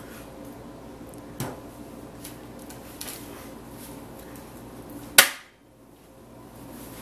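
Butter being rubbed by hand over a metal baking sheet to grease it, a soft rubbing against a steady background hum. There is a knock about a second and a half in and a few light clicks. A little after five seconds comes a sharp, loud click, and the hum drops away briefly after it.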